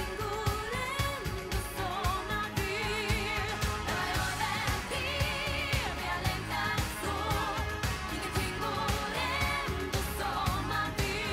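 Swedish-language pop song: a woman singing with vibrato over a steady drum beat and bass.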